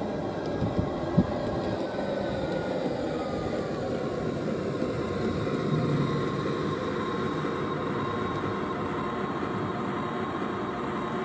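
Radio-controlled G scale Class 66 model diesel locomotive running past, its onboard sound unit playing a steady diesel engine sound that swells as it passes about halfway through. Two short clicks about a second in.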